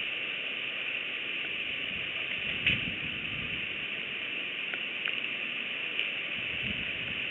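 Outdoor ambience from the nest-cam microphone: a steady high hiss with low wind rumbles in a couple of gusts, and one sharp click about two and a half seconds in.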